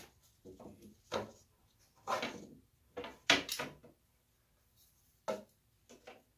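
Wooden knocks and short scrapes from a homemade marking device, a wooden stick with a pencil clamped to it, being seated in a hole in a wooden frame and drawn across the board to make a pencil mark. A handful of separate strokes, the loudest a little over three seconds in.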